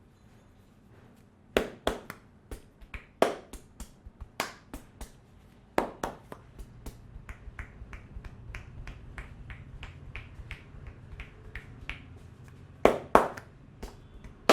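Hands striking during an Indian head massage: an irregular series of sharp slaps and claps that starts about a second and a half in. A few loud smacks are spaced apart, then softer, quicker pats follow, and two loud smacks come near the end.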